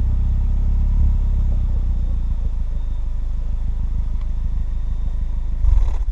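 Audi A4 B6 with a Borla 140100 cat-back exhaust idling with a steady, deep exhaust drone. A brief louder surge comes near the end, and then the sound cuts off abruptly.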